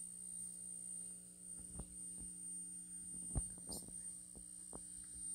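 Steady low electrical hum with a thin high whine over it, the idle hum of the powered speakers wired through the aux splitter with no audio playing. A few light knocks and clicks come through, the loudest just past the middle.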